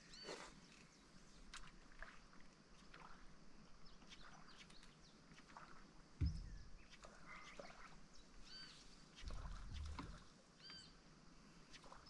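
Birds chirping and calling in short notes, with two clearer arched calls in the last few seconds; a single low knock about six seconds in is the loudest sound, and a brief low rumble follows near the end.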